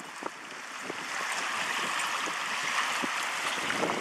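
Small river waves lapping and washing against shore ice: a steady rushing wash that fades in over the first second, with a few faint knocks.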